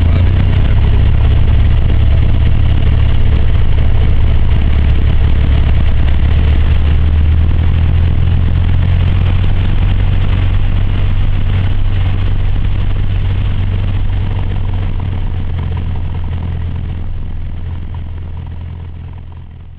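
A Cessna 152's four-cylinder Lycoming engine and propeller running steadily at low power, heard from inside the cockpit. The drone fades out over the last few seconds.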